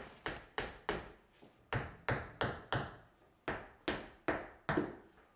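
White rubber mallet tapping repeatedly on a wooden tabletop board, about thirteen sharp taps in quick runs of four or five with short pauses between runs.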